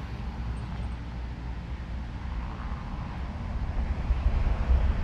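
Car driving along a road: a steady low road and engine rumble that grows louder near the end.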